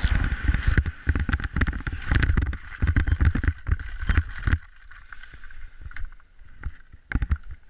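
Wind buffeting the microphone of a speed-flying pilot's camera on the final low approach, a loud rumbling rush that drops away suddenly about four and a half seconds in as he touches down. It is followed by a few faint scuffs and clicks.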